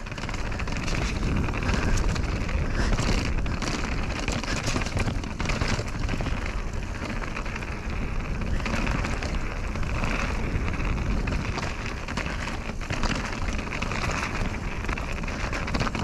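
Mountain bike running down a dirt downhill trail: steady rush of tyre and wind noise over the microphone, with frequent clicks and knocks from the bike rattling over bumps.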